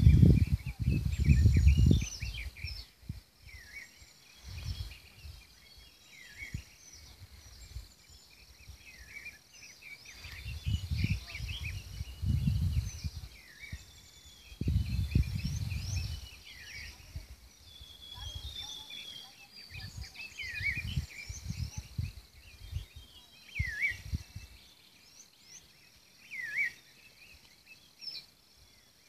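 Birds calling repeatedly in short high chirps and sweeping notes. Wind buffets the microphone in several low gusts, the loudest about a second in.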